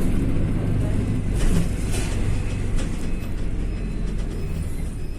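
Moving road vehicle: a steady low rumble of engine and road noise, with a few short rustles or clicks about a second and a half to two seconds in.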